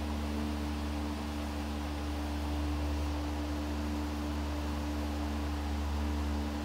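Steady low hum with two faint steady tones above it and an even hiss, unchanging throughout.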